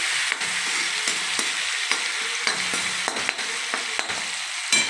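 Chopped tomatoes, green chillies and garlic sizzling in hot oil in a kadhai, cooking down with salt to soften. A spatula stirs and scrapes through them, with scattered clicks on the metal pan and a sharper knock near the end.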